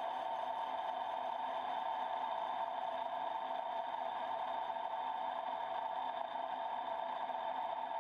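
Horizontal boring mill's face-milling cutter running and cutting the cast-iron manifold face of a Cummins 5.9 cylinder head: a steady, even machine whine made of several fixed tones.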